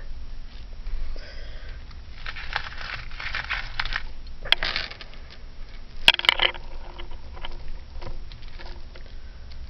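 Costume jewelry being handled and sorted: rustling and scraping of small pieces, with several sharp metallic clicks as pieces knock together about halfway through.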